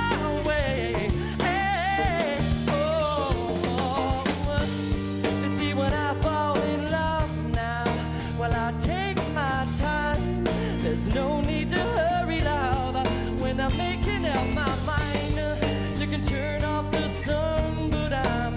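A live pop-rock band playing a break between choruses: drum kit and bass under a melodic line that bends and wavers in pitch, with no lyrics sung.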